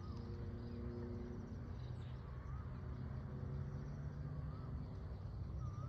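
A bird repeating a short whistled call that rises and falls, every two seconds or so, over a low steady rumble.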